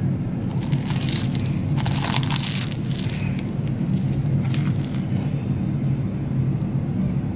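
Biting and chewing into a sugar-coated, deep-fried Korean cheese dog, its batter crust crunching in bursts through the first few seconds and once more around five seconds in. A steady low hum runs underneath.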